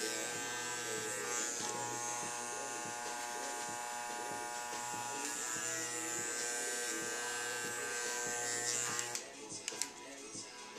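Andis Master magnetic-motor hair clippers running steadily, cutting hair at the nape, then switched off about nine seconds in.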